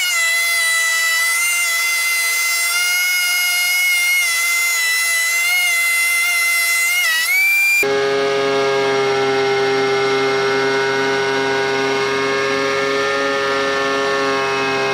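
DeWalt benchtop thickness planer running with a steady, high-pitched whine, which sags briefly and recovers about seven seconds in. About eight seconds in the sound switches abruptly to a lower, steady drone with a faint pulsing undertone as a board goes through the cutter head.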